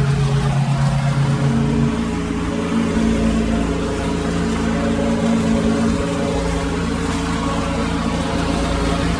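Husqvarna GT52XLS riding lawn tractor running steadily, its mower deck cutting through tall weeds and grass.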